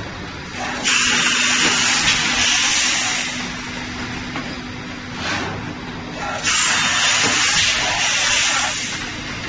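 Automatic plastic thermoforming machine running, with compressed air hissing in two long blasts of about three and a half seconds each. Each blast starts suddenly, and the two starts are about six seconds apart. A short puff of air comes between them, and a steady low machine hum runs underneath.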